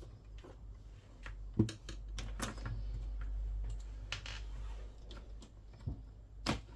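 Scattered small clicks and taps of a screwdriver and hands working on the plastic casing of a PlayStation 3 while a screw is taken out, the sharpest knock about a second and a half in, over a steady low hum.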